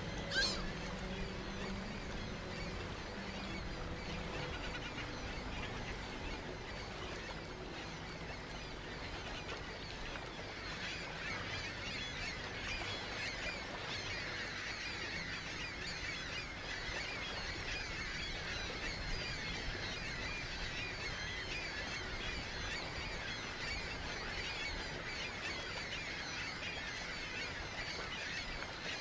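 A large flock of ring-billed gulls calling continuously, a dense chatter of many overlapping calls, with one louder call standing out just after the start.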